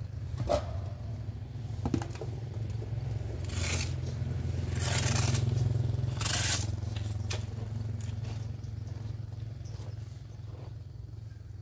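Metal hoe blade scraping and dragging loose red soil on hard ground toward a metal basin, with a few light knocks early and three longer scrapes in the middle. A steady low hum runs underneath.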